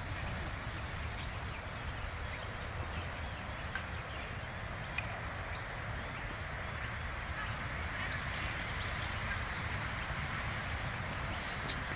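A small bird chirping short, high notes about twice a second, over a steady low outdoor rumble.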